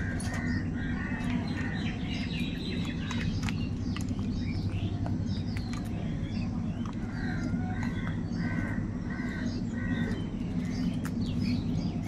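Crows cawing, a run of short harsh calls repeated several times, most clearly a quick string of about five toward the second half, over chirping from smaller birds and a steady low hum.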